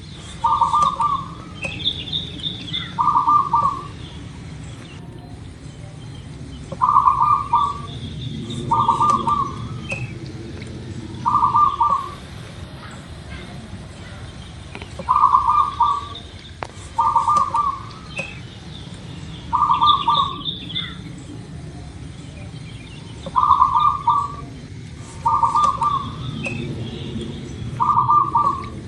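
Zebra dove (perkutut) cooing: short, rapid rattled coos repeated every second or two, often in pairs, with fainter high chirps between them.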